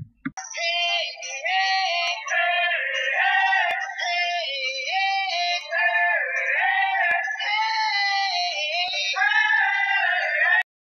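High-pitched singing in a song track, a continuous melody with sliding notes, cutting off suddenly near the end.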